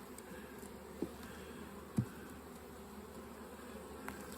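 Honeybees buzzing over an open hive: a steady, even hum of many bees. There are two short knocks, about one and two seconds in.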